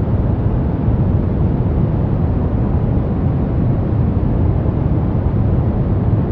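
Brown noise: a steady, deep rushing hiss, strongest in the bass and softer toward the treble.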